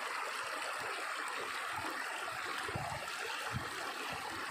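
Shallow stream flowing over stones: a steady hiss of moving water.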